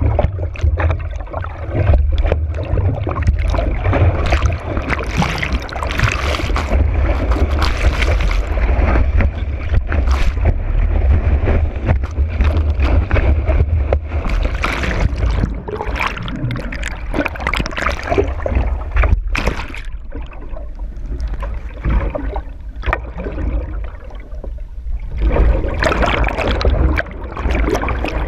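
Water rushing and slapping against a kiteboard planing at speed, picked up by a camera mounted on the board, with heavy wind rumble on the microphone. The rush surges unevenly, easing for a few seconds past the middle and building again near the end.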